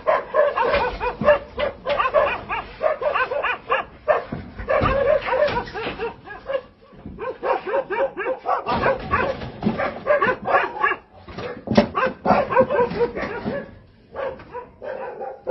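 Dogs barking and yelping in quick succession, several calls a second, easing off near the end.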